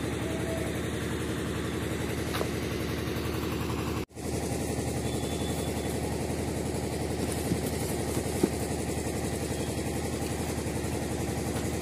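An engine idling steadily with a fine, even pulsing; it cuts out for an instant about four seconds in and carries on.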